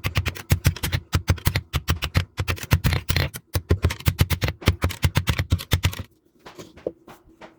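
Rapid, evenly paced hammer blows on steel, about six a second, as leaf-spring steel is forged into a blade; about six seconds in the blows stop and only a few faint knocks follow.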